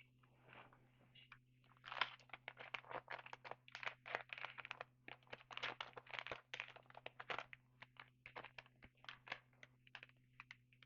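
Faint, irregular rustling and clicking of trading cards being handled and flipped through, with a crinkly edge.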